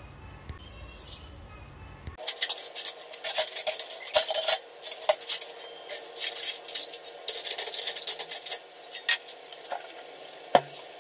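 Kitchen clatter of steel utensils and dishes being handled: quick, irregular clinks and knocks starting about two seconds in and thinning out after about eight seconds, with a few more near the end. A faint steady hum runs underneath.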